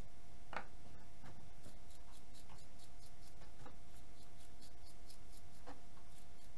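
Utility-knife blade scraping between the copper commutator segments of an electric motor's armature to clear out packed grime: a quick run of short, light scratches, several a second, through the middle, with a few louder clicks of the blade and armature being handled.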